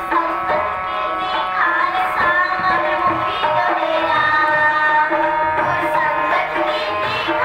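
Group of children singing a Sikh devotional song together, with tabla beating a steady rhythm beneath long held accompanying notes.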